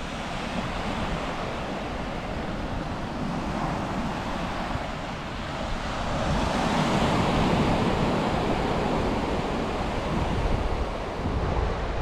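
Sea waves washing onto the beach, with wind buffeting the microphone. The surf swells louder about halfway through, then eases off.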